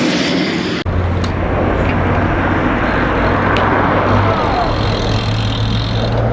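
A loud aircraft noise cuts off abruptly just under a second in, followed by a steady engine drone with a low hum.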